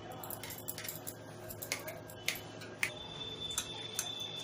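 Knife chopping soft roasted, peeled brinjal (eggplant) on a stainless steel plate: irregular sharp taps of the blade against the steel, several a second.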